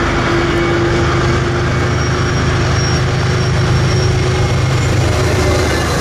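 BNSF freight train's lead GE ES44DC and ES44C4 diesel locomotives approaching and passing close, engines running loud and steady with a strong low hum. A thin, high wheel squeal sets in about two seconds in.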